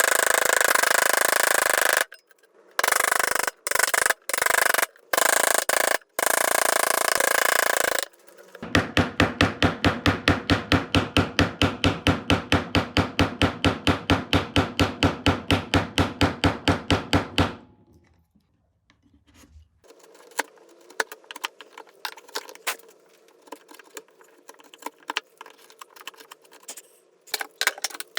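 Hand tools working hardwood: loud steady rasping or scraping on wood in several short cut-together runs, then fast even back-and-forth strokes, about four or five a second, like sawing or filing, then a much quieter stretch of light scrapes and small ticks.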